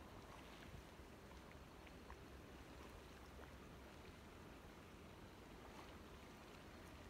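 Near silence: a faint, steady rushing noise with a few faint ticks.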